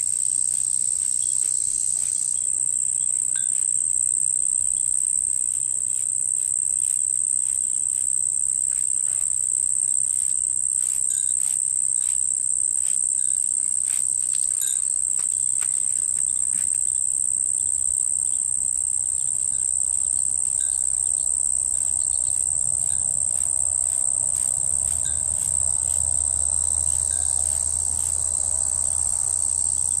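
Insects trilling in a steady, unbroken, high-pitched chorus, with a faint low rumble coming in during the second half.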